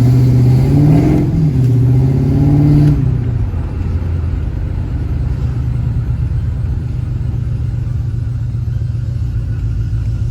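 LS V8 engine through long-tube headers and a 3-inch Hooker BlackHeart header-back exhaust, running at raised revs with a brief rev about a second in, then dropping about three seconds in to a steady low rumble.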